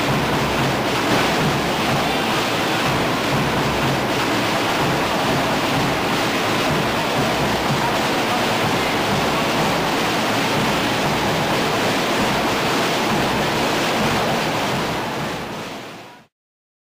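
Dense, steady din of a large protest crowd in a street, fading out near the end.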